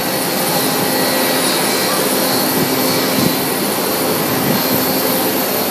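Steady jet engine noise of an aircraft at the airport, an even rushing sound with a faint high whine, with voices murmuring underneath.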